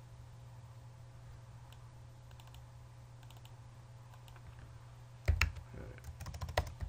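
Computer keyboard keystrokes: a few faint ticks, then a run of sharp clacks starting about five seconds in, the first one loudest, over a low steady hum.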